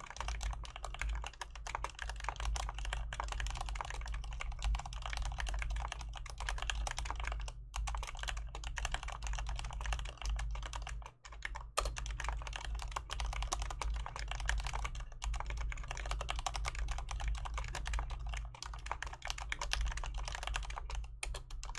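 Fast, continuous typing on a Mistel Barocco split mechanical keyboard with Cherry MX Black linear switches and PBT keycaps: a dense run of key strokes with a short pause about eleven seconds in, over a steady low hum.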